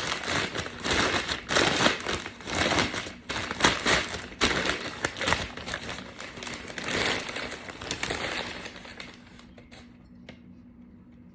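Packaging crinkling and rustling as it is handled, with many sharp crackles; it dies away about nine seconds in, leaving only a few faint clicks.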